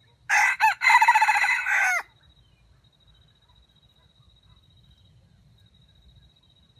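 Red junglefowl rooster crowing once: a shrill crow of under two seconds, briefly broken near its start and ending on a falling note.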